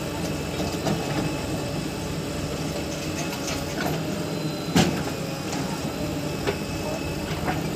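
Diesel engines of a JCB 3DX backhoe loader and a farm tractor running steadily, with scattered light knocks and a single loud thump about five seconds in as the backhoe bucket tips a load of soil into the tractor trolley.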